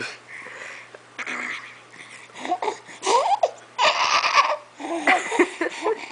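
Baby laughing and squealing in short bursts, with a loud breathy shriek about four seconds in, while an adult's hand pats over its open mouth.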